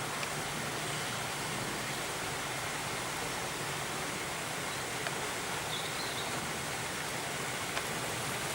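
Steady outdoor background hiss with no clear source, with a few faint ticks and one brief faint chirp about six seconds in.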